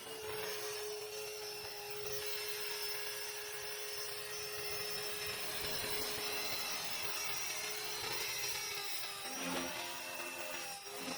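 GAUI X3 electric RC helicopter running, a steady mechanical whine from its motor, gears and rotor that holds one pitch throughout.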